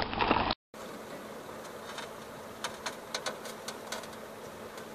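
Quiet outdoor background hiss with a faint steady buzz and scattered light clicks, after a brief drop-out about half a second in.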